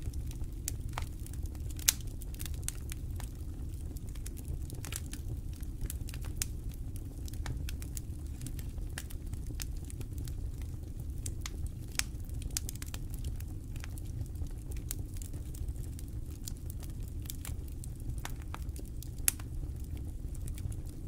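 Small wood campfire crackling: a steady scatter of sharp snaps and ticks over a low rumble of flame, with three louder pops, one about two seconds in, one near the middle and one near the end.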